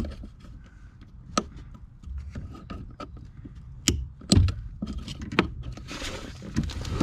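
Plastic clicks and knocks from a hand pressing the locking tab of the accelerator pedal's wiring connector and working the connector loose. A few sharp clicks come between about one and five and a half seconds in, the loudest about four and a half seconds in, and a rustling follows near the end.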